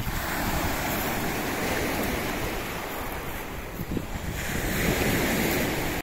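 Small sea waves breaking and washing up over a pebble beach, swelling twice. Wind rumbles on the microphone throughout.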